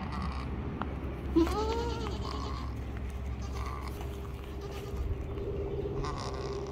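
A goat bleats once, about a second and a half in: a short call that rises and then falls in pitch.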